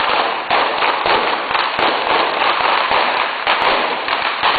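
A traca, a long chain of firecrackers, going off in a rapid, unbroken string of bangs.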